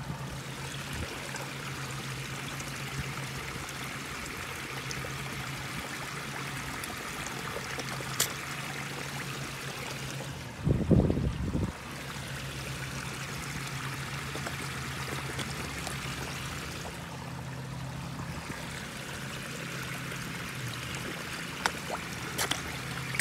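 Steady running water of a backyard koi pond, trickling and splashing continuously, with a steady low hum under it. A brief loud low rumble about eleven seconds in, and a few short clicks near the end.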